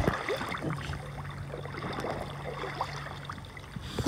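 Lake water lapping and splashing in small, irregular strokes around a kayak as it is paddled, with a faint steady low hum through the middle.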